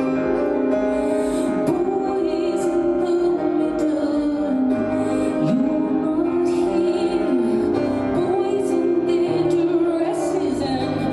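Live music: a woman singing long held notes with vibrato over steady instrumental accompaniment.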